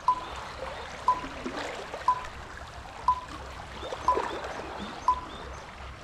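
A short electronic beep once a second, counting off seconds, over a steady wash of sea water against a rocky shore.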